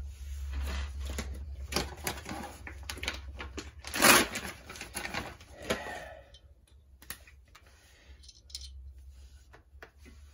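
Clicks and rattles of hands handling a refrigeration hose and brass fittings at a compressor's tubing, with one louder brief noise about four seconds in, over a steady low hum. The clicking thins out after about six seconds.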